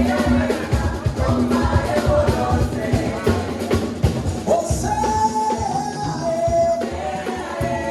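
Gospel praise music with a live band and a singing voice. Dense drumming runs through the first half, then thins out about halfway as long held notes take over.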